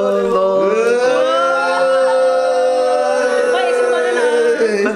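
A singer holds one long note for about four and a half seconds in a song, then breaks off near the end.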